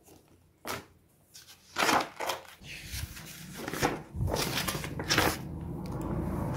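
Pages of a spiral-bound paper activity book being lifted and turned by hand: a series of short paper rustles and flaps.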